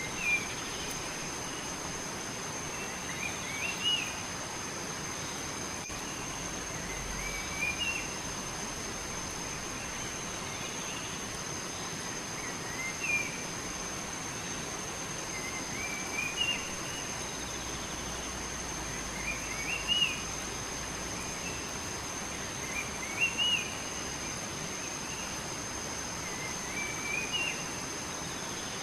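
A songbird repeating a short rising chirped phrase every three to four seconds, about eight times, over a steady hiss of flowing water and a thin, steady high-pitched tone.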